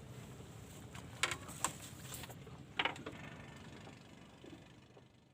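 A few sharp mechanical clicks, three standing out, over a low steady background; the sound fades away near the end.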